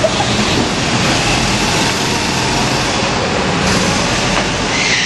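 Go-kart engines running: a steady, loud mechanical drone with no break.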